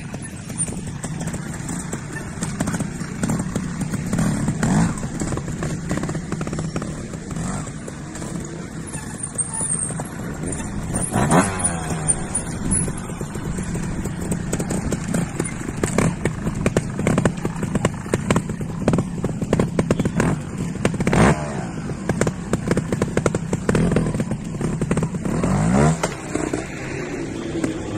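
Trials motorcycle engine running at a low idle, blipped into short, sharp revs several times (clearest about 11, 21 and 26 seconds in) as the rider hops the bike up rocks and concrete steps.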